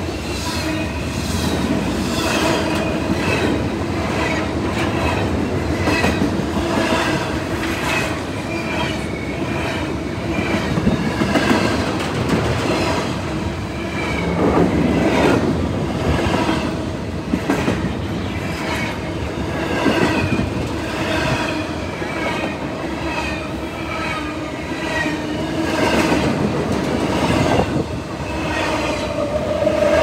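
Double-stack intermodal freight cars rolling past at close range: a steady rumble of steel wheels clicking over rail joints, with short high squeals from the wheels.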